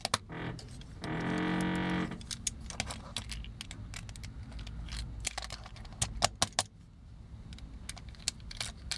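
Irregular small clicks and clinks of the plastic and die-cast metal parts of a vintage Transformers toy being handled and fitted together during disassembly.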